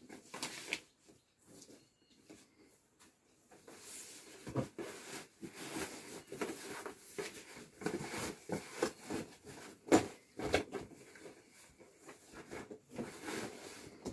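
Rustling and handling as a cardboard cake box is worked into a thin white carry bag: irregular crinkles, scrapes and light knocks, sparse at first and busier from about four seconds in, with one sharper knock about ten seconds in.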